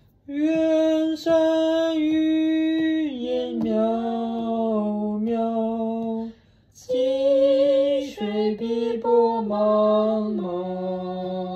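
A woman singing a line of a Chinese song unaccompanied, in two long held phrases with a short break about six seconds in. It is a singing student's attempt at the rhythm she has just been corrected on.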